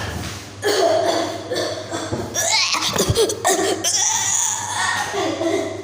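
People laughing and chuckling, mixed with wordless voice sounds.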